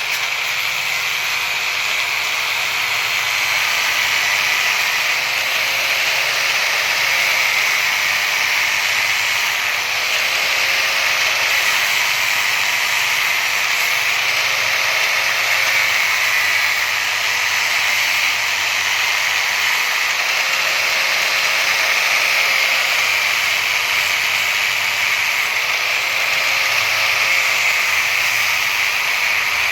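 Ceiling fan with an 8-coil stator running at speed: a steady, loud whoosh of moving air, with a faint motor tone that wavers slightly every few seconds.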